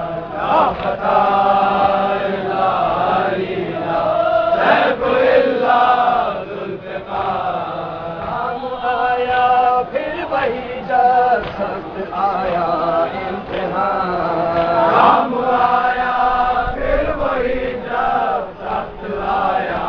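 Men's voices chanting a melodic Urdu devotional recitation in chorus, sung lines following one another without a break.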